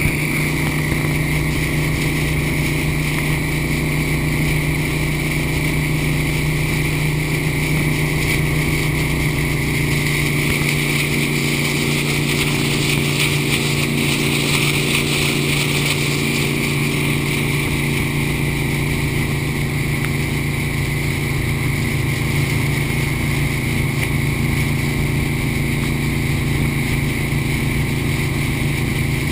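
Hacker-Craft mahogany runabout's inboard engine running steadily at speed, a low, even drone, with the rush of the wake and spray along the hull.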